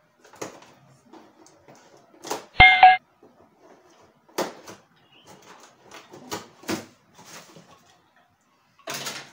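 Scissors snipping and scraping through packing tape on a cardboard box, in short scattered clicks and scrapes, with cardboard rustling near the end. About two and a half seconds in, a short, loud, bright ding rings out, the loudest sound here.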